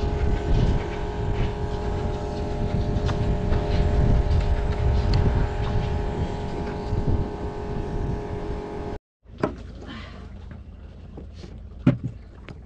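An engine runs steadily, a constant hum of several tones over a low rumble, and cuts off abruptly about nine seconds in. Quieter metallic clicks and taps follow as a socket wrench works on the nuts and washers of the clutch's through-bolts.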